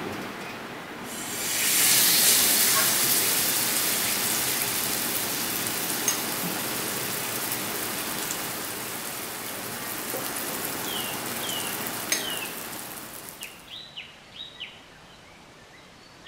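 Chicken steak sizzling as it goes into hot oil in an aluminium frying pan: the sizzle starts suddenly about a second in, is loudest just after, then slowly dies down and turns much quieter near the end, where a few short chirps are heard.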